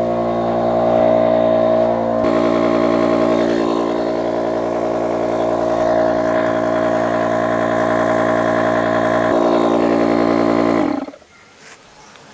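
A motor running steadily with an even hum that shifts pitch slightly about two seconds in, then winds down with falling pitch and stops near the end.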